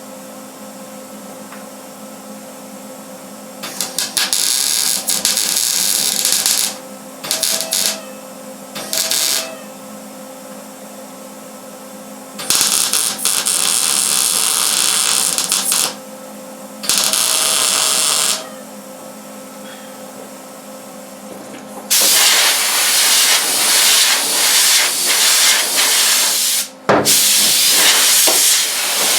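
Arc welding on the sheet-steel roof skin of a 1963 Chevy C10: about six bursts of crackling hiss, from under a second to several seconds long, the longest starting about two-thirds of the way in. A steady hum runs underneath between the bursts.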